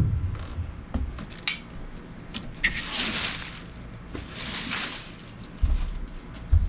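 Push broom sweeping across wooden deck boards and dry leaves: two long swishing strokes in the middle, with dull thumps on the deck at the start and near the end.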